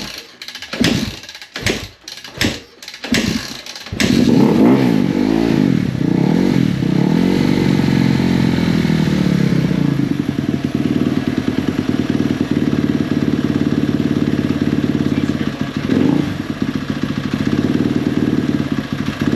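A 2017 Kawasaki KX250F's single-cylinder four-stroke engine fires after a few sharp strokes as it is kicked over, catching about four seconds in. It revs up and down for several seconds, then settles into a steady idle with one brief blip of throttle near the end. This is the bike running again once its broken fuel-pump connection is dealt with.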